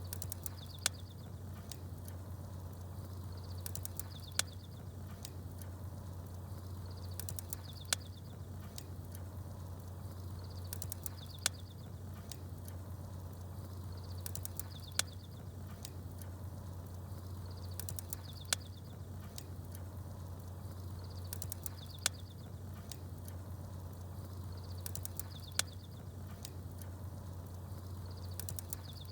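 Fire crackling with small birds chirping: a sharp pop and a brief high chirp that come back in the same pattern about every three and a half seconds, over a steady low hum.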